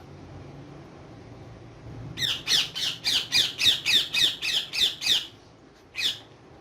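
Parrot screeching: a rapid run of about a dozen harsh calls, each falling in pitch, about four a second, starting about two seconds in, then a single call near the end.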